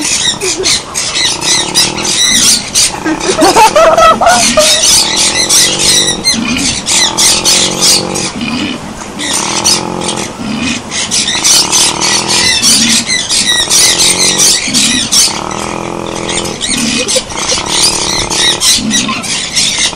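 Male koala bellowing: a long run of rasping, snore-like breaths in alternating with deep, belching grunts out, in a steady rhythm.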